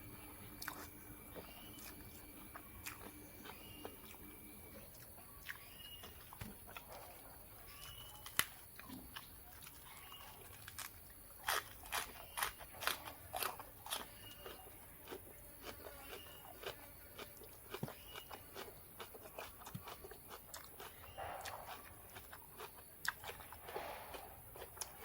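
Close-up biting and chewing of crunchy food, a scatter of crisp crunches with a dense run of loud ones around the middle.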